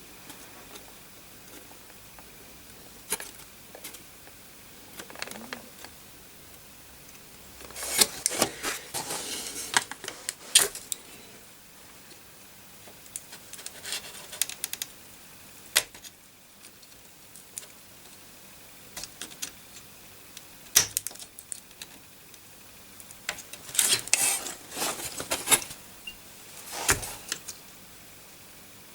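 Small screwdriver clicking and scraping against the metal pins of a corroded motherboard socket in short, irregular bouts, as bent pins are straightened.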